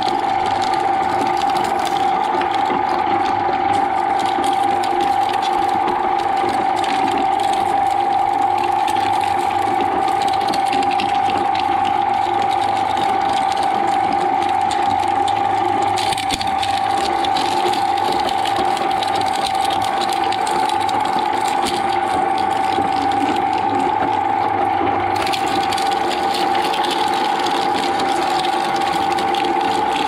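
Twin-shaft shredder running steadily with a constant whine from its drive, its hooked cutter discs crunching and tearing a green stalk fed into them. The tearing grows coarser about halfway through and again near the end.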